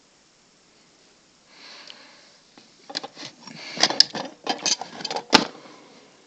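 Hard objects being handled: a brief rustle, then a quick irregular run of clicks, knocks and clatter, the sharpest knock about five seconds in.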